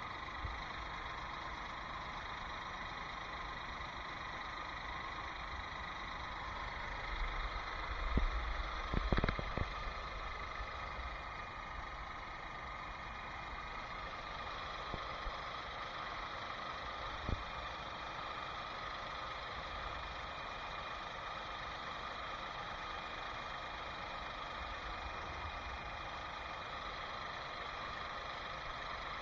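Ford Escape's 1.6-litre EcoBoost four-cylinder idling steadily, freshly refilled with oil, heard from underneath the car. A few handling thumps come about eight to ten seconds in, and a single sharp click a little past the middle.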